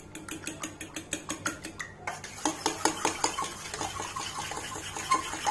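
Eggs being beaten by hand with a metal utensil in a stainless steel bowl: rapid, steady clicking of the utensil against the bowl's side, many strikes a second.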